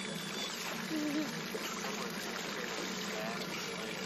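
Boat engine idling steadily, with water lapping and trickling around the hull, and a couple of brief, faint voice fragments.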